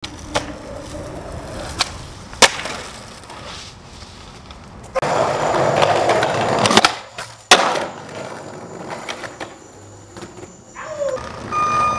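Skateboard on concrete: wheels rolling, with sharp clacks of the board popping and landing, the loudest about two and a half seconds in. About five seconds in a louder stretch of rolling noise runs for nearly two seconds and ends in two hard cracks.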